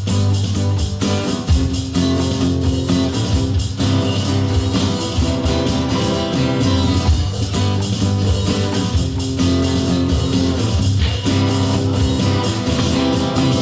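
Live band playing an instrumental break in a rock song: strummed guitar over bass and drums, with no singing.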